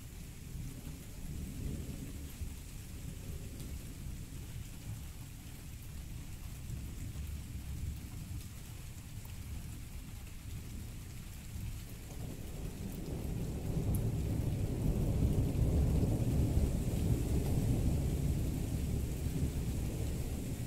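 Rain falling steadily under a low, rolling rumble of thunder that builds past the middle and eases slightly near the end.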